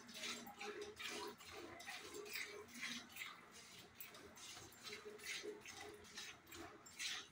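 A cow being milked by hand: jets of milk squirting into a steel pail in a steady rhythm, about two squirts a second.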